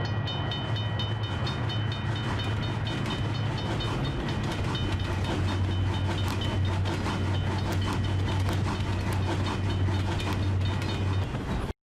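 Passenger train running through at speed, its coach wheels clattering in rapid clicks over the rail joints beneath a steady low rumble. A few high steady tones fade out over the first seconds. The sound cuts off abruptly near the end.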